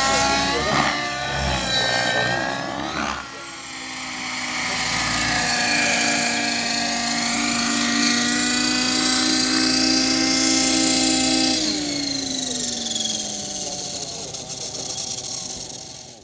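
Hirobo SDX radio-controlled helicopter's rotor and engine whine swinging quickly up and down in pitch during 3D manoeuvres, then settling into a steady hover tone. About twelve seconds in the pitch falls away steadily as the helicopter spools down on landing.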